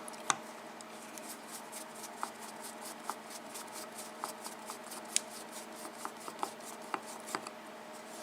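Faint light clicks and rubbing from a small pin-tumbler lock and its metal parts being handled, with a sharper click a fraction of a second in and another about five seconds in, over a steady low hum.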